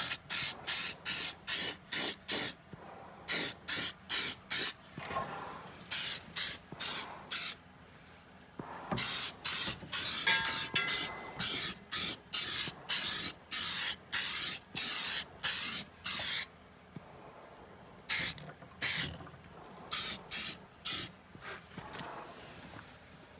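Aerosol can of rust converter spraying in many short bursts, a few a second, in several runs with pauses between them.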